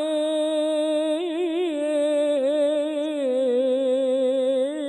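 Male voice singing an Egyptian Islamic ibtihal (devotional supplication) unaccompanied: one long melismatic note, decorated with quick wavering trills about a second in and again near the end, the pitch stepping down slightly around the middle.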